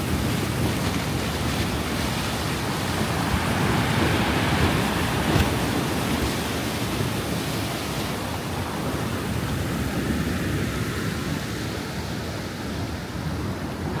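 Stormy Black Sea surf breaking and washing in foam below a pier, a steady rush that swells about four seconds in and eases near the end, with wind on the microphone.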